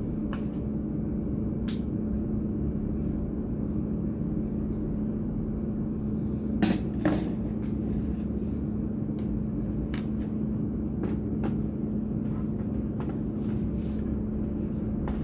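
Scattered clicks and knocks of metal parts being handled as a new motor is seated into a carpet machine, the two loudest knocks close together about seven seconds in. A steady low hum runs underneath.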